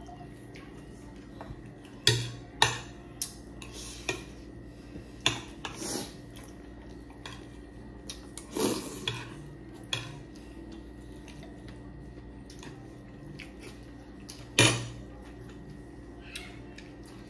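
Spoons and a ladle clinking and knocking against plates and a glass serving bowl during a meal: scattered single clinks, the loudest about two seconds in and again near the end, over a faint steady hum.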